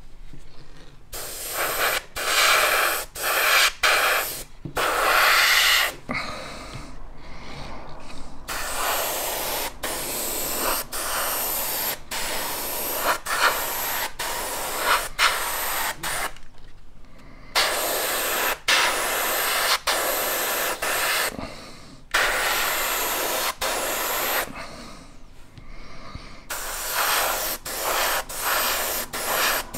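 Airbrush spraying paint onto a plastic model kit, its air hiss starting and stopping in repeated bursts of one to three seconds, with brief breaks and a few longer pauses as the trigger is released.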